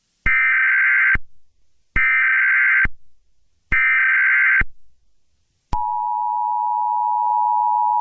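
Emergency Alert System header tones: three short bursts of warbling data tone, about a second apart. Then the EAS two-tone attention signal starts, a steady harsh tone that runs on, announcing a broadcast alert.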